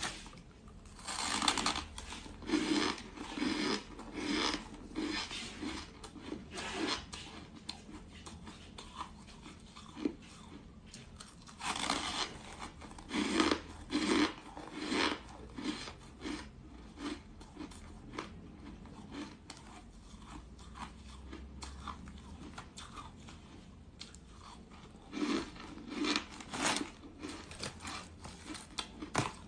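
Soft, snow-like ice being bitten and chewed, heard as crisp crunches close to the mouth, with fingers scraping and breaking the ice in a plastic tub. The crunching comes in three spells, near the start, in the middle and near the end, with quieter chewing and rustle between.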